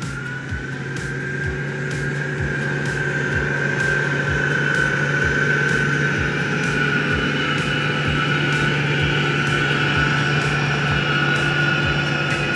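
Case IH Magnum 340 tractor's six-cylinder diesel engine running under load while pulling a tillage cultivator, with a steady high whine over the engine note. It grows louder as the tractor approaches and passes close by.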